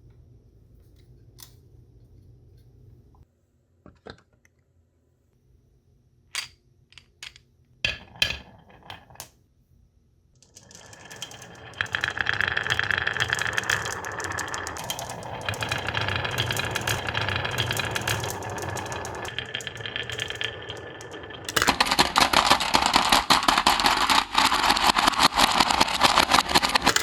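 Marbles rolling and clattering down a wooden HABA marble run: a few single clicks at first, then a dense continuous rattle from about ten seconds in that gets louder near the end.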